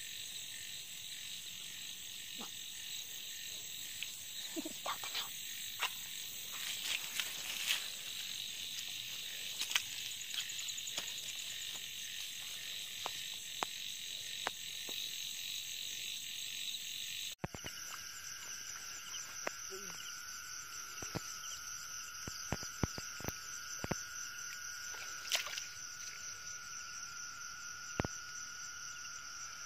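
Night chorus of insects and frogs: steady, high-pitched insect trilling with scattered sharp clicks. The mix of tones changes abruptly about seventeen seconds in.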